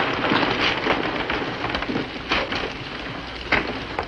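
A roomful of men sitting down at once: shuffling feet, clothing and many chairs scraping and knocking in a steady clatter of small sounds.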